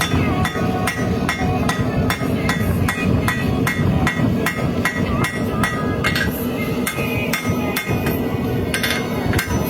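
Steady, even hammer blows on hot W1 tool steel, about three a second, as the heel of an integral-bolster knife blank is forged down. A steady low rumble runs underneath.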